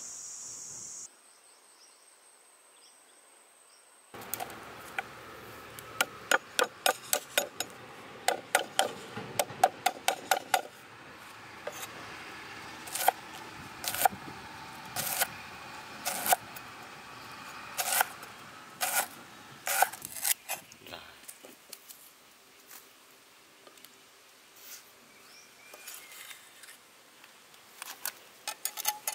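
Cleaver chopping on a wooden cutting board: after crickets trilling for about the first second and a short quiet gap, a run of fast chops at about three or four a second, then slower single chops, then faint taps and scraping as the minced pieces are gathered onto the blade.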